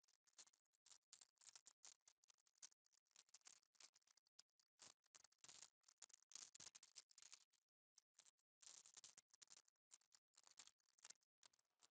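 Faint ASMR trigger sounds: quick, crisp scratchy swishes and clicks in an irregular patter, with short pauses between clusters.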